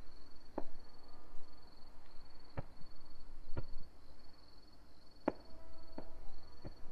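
Fireworks shells bursting: six sharp bangs at uneven intervals, one about every second or two.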